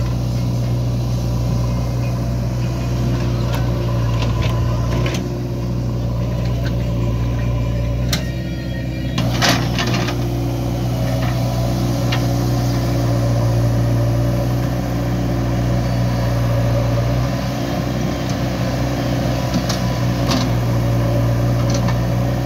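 Heavy diesel engine running steadily at an even pitch, with scattered knocks and one sharper clank about nine and a half seconds in.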